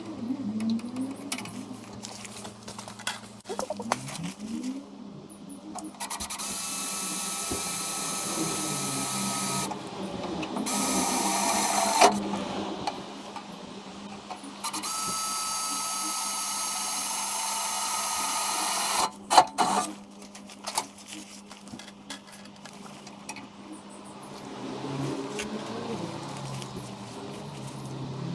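Cordless drill running in three bursts, each a few seconds long, working on the truck's rear panel to mount a number plate, with sharp clicks at the ends of the second and third runs and handling and rattling in between.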